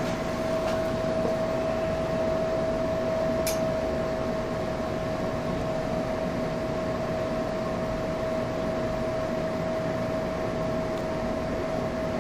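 Steady mechanical whir with a constant mid-pitched tone running underneath, and one light click a few seconds in.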